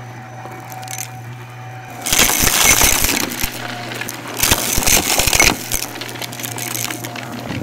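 Shark Navigator upright vacuum running with a steady low hum, twice loudly crunching and rattling as it sucks up dry debris, about two seconds in and again about four and a half seconds in.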